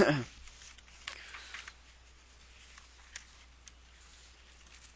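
Quiet room tone picked up by a headset microphone. A short rustle fades out at the start, and a few faint clicks follow about three seconds in.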